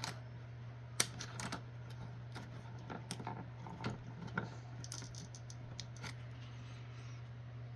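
Homemade plastic grinder running: a dual-shaft shredder driven by a paper-shredder motor, with a steady low motor hum and irregular sharp clicks and cracks as plastic is chewed between the cutters.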